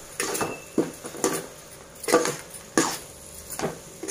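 A spatula scraping and knocking against the inside of a large aluminium pot, in repeated strokes about twice a second, as it stirs spice powder into fried vegetables and egg.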